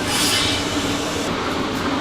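A steady mechanical rumble with a low hum, and a brief hiss about a quarter of a second in.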